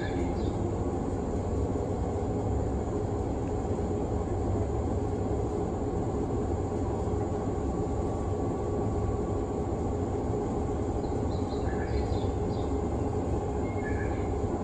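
Steady hum of a stationary 189 series electric train's underfloor equipment and fans, running without change, with a few faint high chirps near the start and again near the end.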